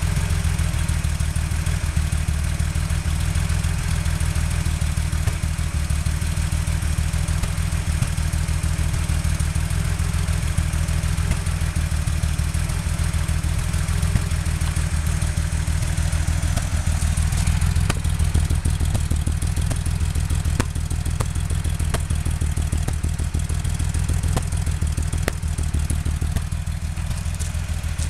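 Porsche 911 flat-six engine idling steadily with a misfire. In the second half, a light rapid ticking shows more clearly over the idle.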